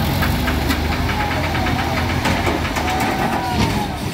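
Diesel engines of Escort Hydra mobile cranes running steadily with a clattering knock, and a faint wavering whine over them in the middle.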